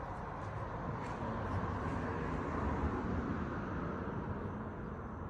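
Outdoor public warning siren sounding faintly and quietly, its sound swelling to a peak about three seconds in and then easing off.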